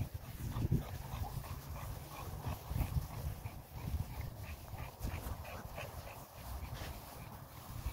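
A dog making soft, short whimpering sounds, scattered and faint, over a low rumble of phone handling noise.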